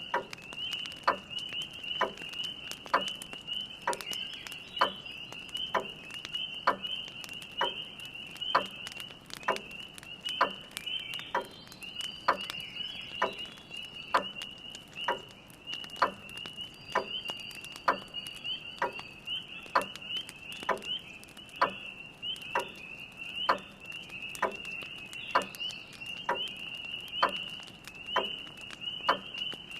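Spring peeper frogs calling in a dense, high-pitched chorus, with a grandfather clock ticking steadily about once a second.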